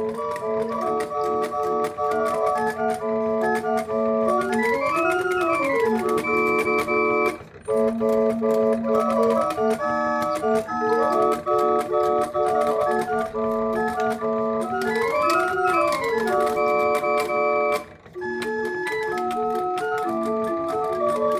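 The pipe organ built into an 1850s Black Forest grandfather clock playing a tune in sustained flute-like notes and chords, with a quick run up and down the scale twice. The music breaks off briefly twice, and after the second break a different phrase begins.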